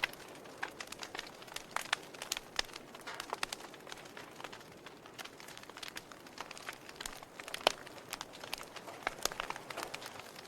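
Wood fire burning in a fireplace: irregular sharp crackles and pops over a soft hiss, with one louder pop a little past the middle.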